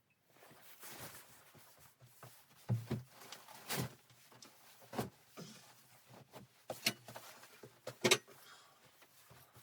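Irregular knocks and clunks, several sharp ones spaced a second or so apart, over a faint rustling: objects being handled and set down.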